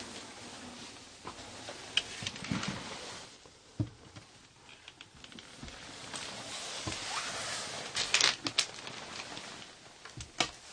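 Scattered knocks and sharp clicks with stretches of rustling, the sound of someone moving about and handling things in a cluttered room; the loudest is a quick cluster of clicks about eight seconds in.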